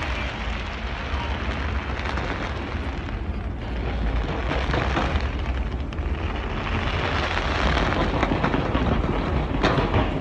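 Fireworks barrage: a continuous rumble of booms with crackling, and a sharp bang near the end.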